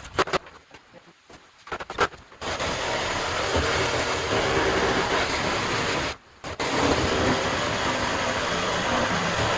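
A few knocks, then a power tool running loud and steady in two long stretches with a brief break between them.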